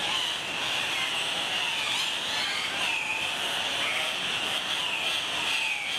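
Ambience of an Andean cock-of-the-rock lek: a steady high-pitched chorus with faint, scattered short calls.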